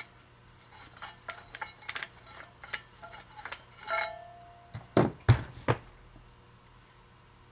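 Metal clinks and scraping as the crank's steel shaft slides out of a Ford tractor leveling box tube, with a brief ring as it comes free about four seconds in. Three loud knocks follow as the metal parts are set down on the workbench.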